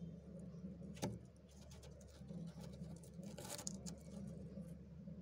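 Fingers crushing and breaking chunks of freezer frost: one sharp crack about a second in, then a run of crisp crackles around three and a half seconds in, over a steady low hum.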